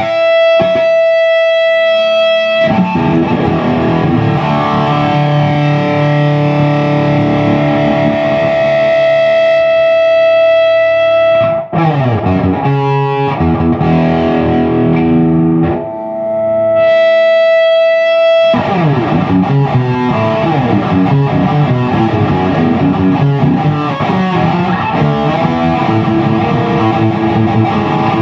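Distorted electric guitar played through a Peavey 6505+ tube combo with a Zoom G1X Four multi-effects pedal in its effects loop: held chords and ringing notes, then faster riffing after a short pause.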